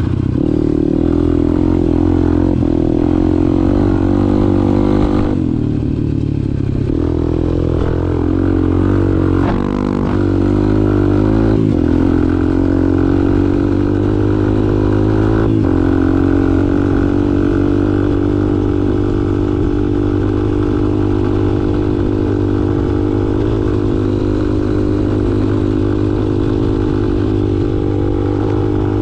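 A 2002 Honda XR200's single-cylinder four-stroke engine runs as the dirt bike is ridden along a trail. The engine pitch rises and falls over the first dozen seconds, then holds fairly steady.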